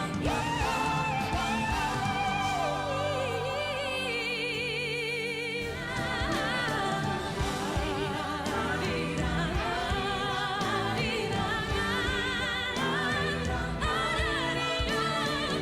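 A solo singer with instrumental accompaniment, holding a long note with a wide vibrato about three to six seconds in.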